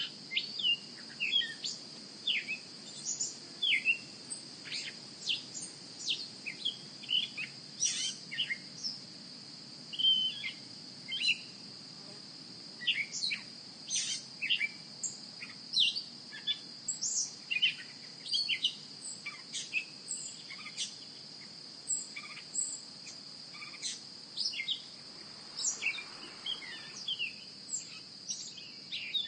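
Many small birds chirping in quick, short calls over a steady, high-pitched insect drone.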